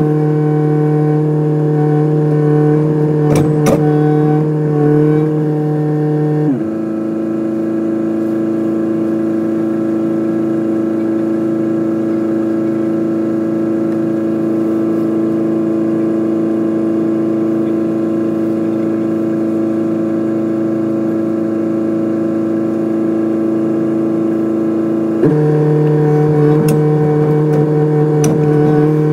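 Kubota excavator running with a steady engine and hydraulic drone. Its note shifts abruptly about six seconds in, holds, then shifts back a few seconds before the end, with a couple of light clicks about three seconds in.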